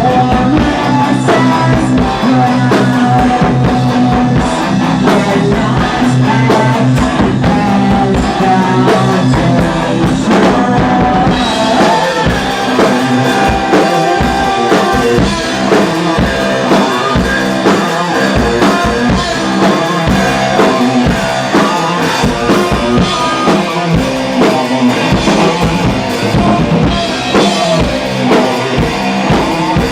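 Heavy metal band playing live in rehearsal: distorted electric guitars, bass and a full drum kit with kick drum and snare. About eleven seconds in the music shifts into a brighter, busier passage with rapid drum strokes.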